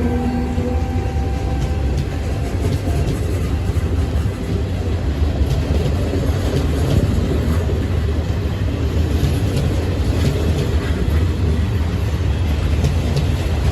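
Train running along the tracks through the station: a steady, loud rumble of wheels on rails with scattered clicks. A few steady tones fade out in the first second.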